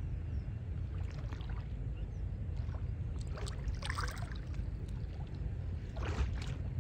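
Water splashing and sloshing as people wade chest-deep and drag clumps of water weed through a lake, a few separate splashes over a steady low rumble.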